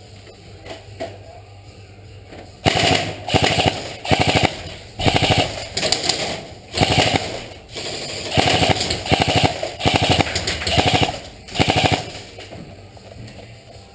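Airsoft guns firing on full auto: about eight short bursts of rapid clicking fire starting nearly three seconds in, with brief pauses between them.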